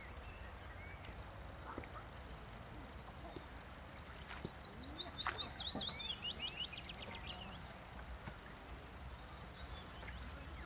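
A songbird singing a fast run of short falling notes, about three seconds long, starting about four seconds in, over a low outdoor background rumble with a few faint chirps.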